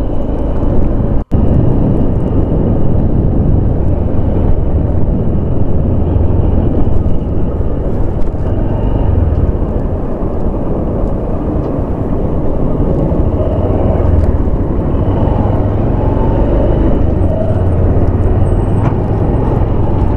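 Motorcycle riding along: wind rushing over the microphone with the bike's engine running beneath it. The sound drops out for an instant about a second in.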